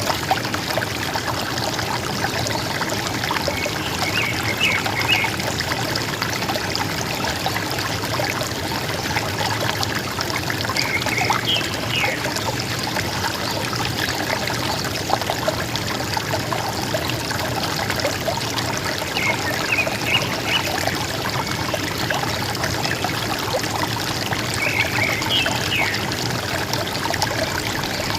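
River water flowing and gurgling steadily. A small bird calls over it four times, each a quick group of high chirps.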